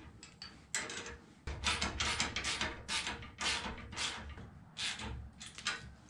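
Hand ratchet wrench clicking in quick runs of strokes while bolts on a tractor cab frame are tightened.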